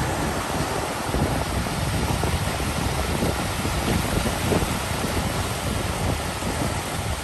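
Ocean surf washing onto a beach, a steady rushing noise, with wind buffeting the microphone in an uneven low rumble.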